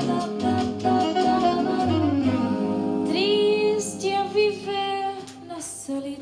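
Recorded music with a singing voice played back through home-built coaxial speakers (a stiff-suspension woofer with a tweeter fitted in), picked up by a camera microphone that makes it sound bright.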